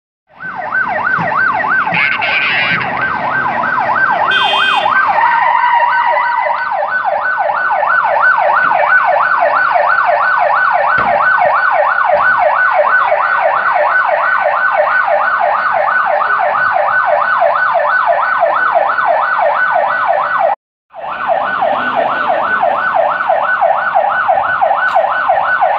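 Police vehicle's electronic siren in a fast yelp, its pitch sweeping up and down several times a second, loud and unbroken except for a brief dropout near the end.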